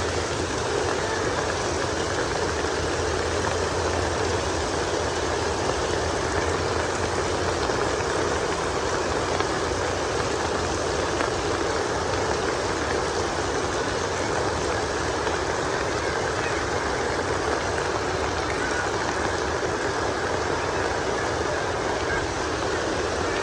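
Steady heavy rain falling, an even unbroken rushing hiss.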